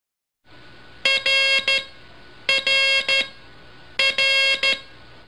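Morse code sent as an audio tone: three identical groups of keyed beeps, each group a short beep, a longer one and a short one, repeated about a second and a half apart over a steady hiss.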